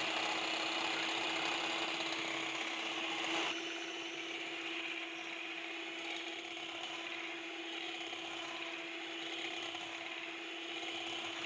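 Electric hand mixer running steadily, its twin wire beaters whisking oil and eggs in a bowl to make them fluffy. A constant motor whir with one steady hum, a little quieter from about three and a half seconds in.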